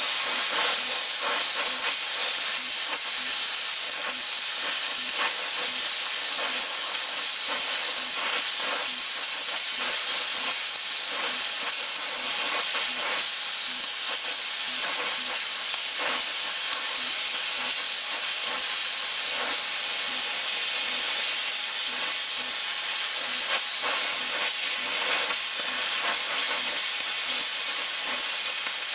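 Harris 43-2 oxy-acetylene torch cutting steel: a loud, steady hiss of the gas jet, with frequent crackles from sparks and molten slag.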